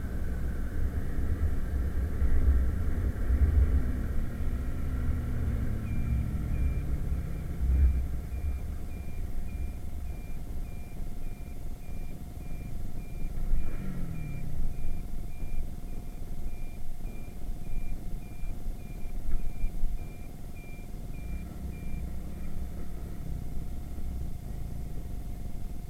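Irbis Virago 110cc moped engine running under way, its pitch rising and falling, with heavy low wind rumble on the microphone. From about six seconds in until near the end, a high beep sounds about twice a second.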